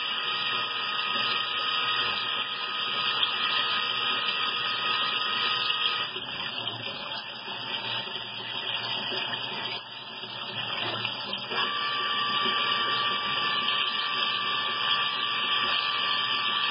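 Tsugami BS-12 III Swiss-type CNC lathe machining under a flood of cutting oil: a constant hiss of oil splashing over the tooling, with a steady high whine during the cut that drops away for several seconds and returns about twelve seconds in.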